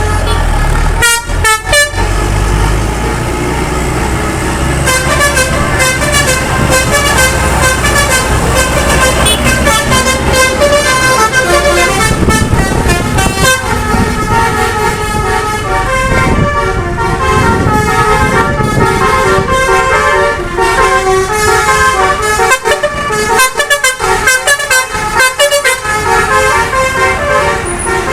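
Tour buses' multi-tone telolet horns (Basuri type) playing quick melodic runs of notes over engine rumble. The horn tunes start about five seconds in and carry on nearly without a break.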